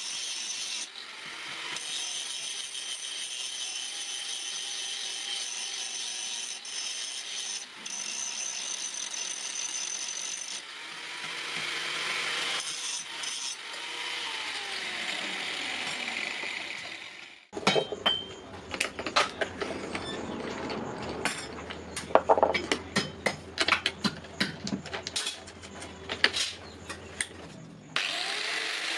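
Angle grinder grinding forged steel scissor blades with a steady high hiss. About halfway through it gives way to a run of sharp clicks and knocks over a low hum.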